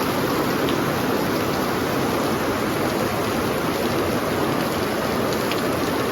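Heavy rain falling steadily on a paper roof.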